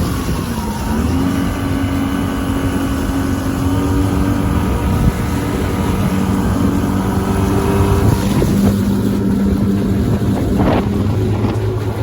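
Small gasoline outboard motor running with the boat under way. Its pitch dips and recovers just after the start, then drops lower after about eight seconds as the throttle changes. Wind buffets the microphone.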